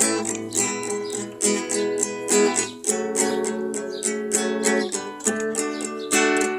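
Acoustic guitar strummed, playing chords of a gospel worship tune as an instrumental.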